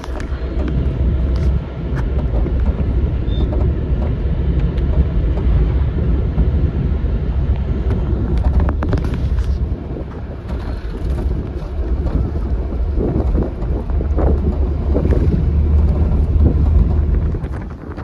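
Cabin noise of a moving vehicle on a mountain road: a steady low rumble of engine and tyres, with a few light knocks and rattles.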